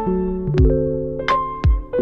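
Background music: held keyboard notes over a low drum beat.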